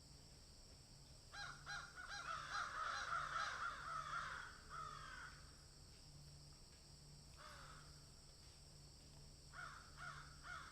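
Birds giving short, harsh, cawing calls over and over, a dense overlapping run of them in the first half, one lone call midway and three more near the end. A steady high insect drone runs underneath.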